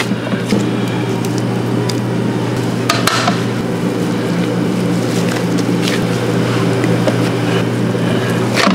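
A steady low mechanical hum, with a few sharp clicks and knocks over it, the clearest about three seconds in and near the end.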